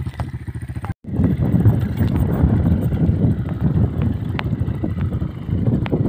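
Enduro dirt bike engine running. The sound cuts out completely for a moment about a second in, then comes back with a rough, uneven rumble and a few sharp ticks.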